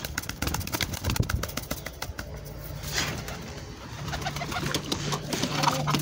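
Domestic pigeon cooing: a low, drawn-out coo from about two seconds in, with rustling and knocks of the bird being handled in the first two seconds.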